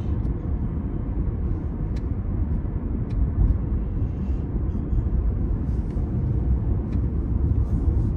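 Steady low road and engine rumble of a car cruising, heard inside the moving car's cabin.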